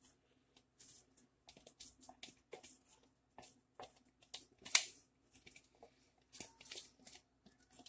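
Silicone spatula scraping blended onion purée out of a glass jar into a pan of tomato sauce: a run of short, irregular scrapes and taps against the glass, with one louder knock near the middle.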